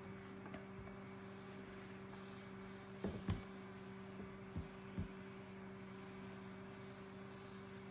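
Steady low hum, with a few soft thumps between about three and five seconds in as a dry-erase eraser is pressed and wiped across a whiteboard.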